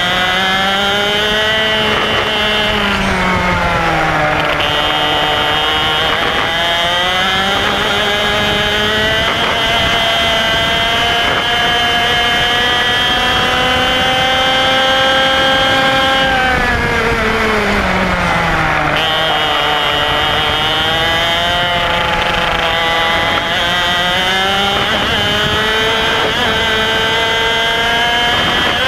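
IAME X30 125cc two-stroke single-cylinder kart engine at race pace, its pitch dropping each time the kart slows for a corner and climbing again as it accelerates out. In the middle it is held at high revs for several seconds along the main straight, then falls sharply for the next corner.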